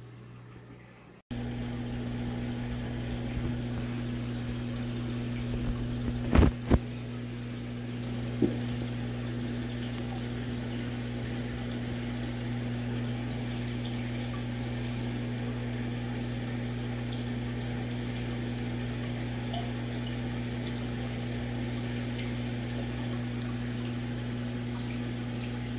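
A saltwater shark aquarium's pump runs with a steady hum while water flows and splashes. The hum starts abruptly after a quieter first second. Two sharp knocks come close together in the middle, and a third follows about two seconds later.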